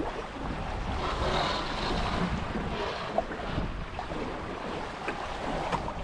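Wind buffeting the microphone over the rush and splash of water along the hulls of a Hobie 16 catamaran under sail, the water sound swelling about a second in.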